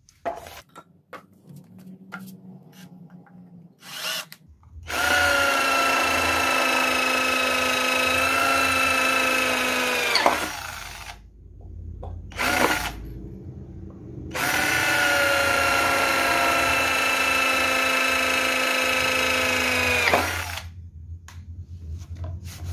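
Electric drill, converted from mains to an 18 V battery, boring through thick-walled 3 mm steel pipe in two steady runs of about five to six seconds each with a pause between. The motor whines steadily under load and speeds up just before each stop.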